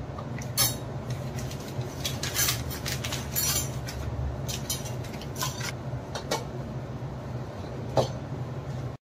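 Kitchen utensils clinking and knocking: a string of light sharp taps of metal against dishes, the loudest about half a second in and near the end. The sound stops abruptly just before the end.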